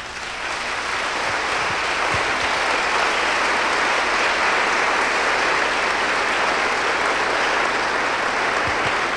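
A large congregation applauding: the clapping swells within the first second and then holds steady.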